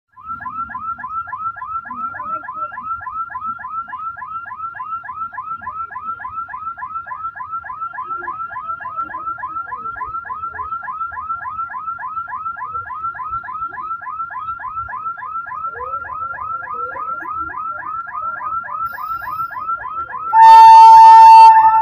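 Level-crossing warning alarm sounding, a rapid falling chirp repeated several times a second, while a train approaches the crossing. Just over twenty seconds in, the train's horn sounds, loud and steady.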